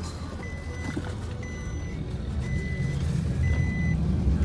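Electronic warning beeper sounding a steady beep about half a second long, once a second, four times, over the low rumble of a vehicle.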